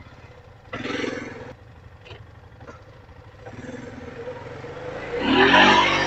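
A four-wheeler (ATV) engine idles, with a short burst of noise about a second in, then revs up loudly near the end as it is throttled.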